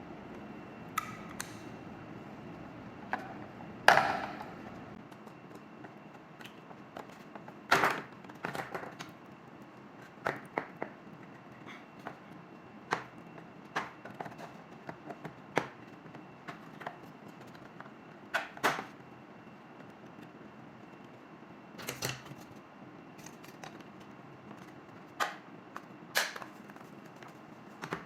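Irregular sharp clicks and knocks of a garden water timer's casing and parts being handled and fitted back together, the loudest about four seconds in.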